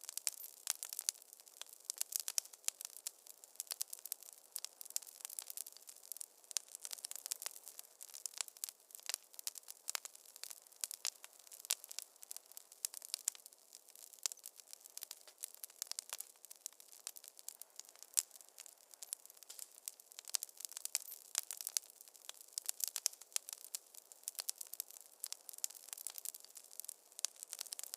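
Wood fire crackling in a fireplace: a steady stream of sharp, irregular snaps and pops over a soft hiss.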